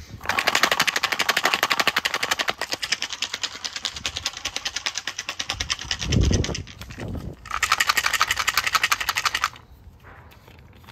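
Whole almonds rattling hard inside a small plastic bottle shaken rapidly, a fast, even run of sharp clicks, to break the nuts into pieces without a knife or cutting board. About six seconds in the rattling breaks off with a dull low thump, then a second burst of shaking runs until it stops shortly before the end.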